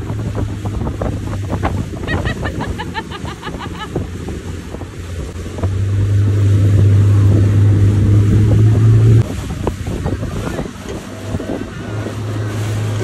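Mercury outboard motor of a tow boat running at speed, with water rushing in the wake and wind buffeting the microphone. The engine's drone grows louder about six seconds in, then drops suddenly a few seconds later.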